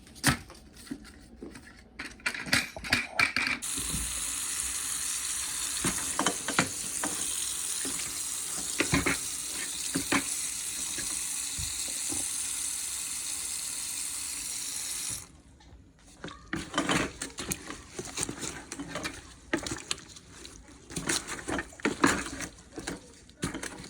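Water running from a tap into a sink, a steady hiss that starts a few seconds in and is shut off abruptly about 15 seconds in. Knocks and clatter of things being handled come before and after it.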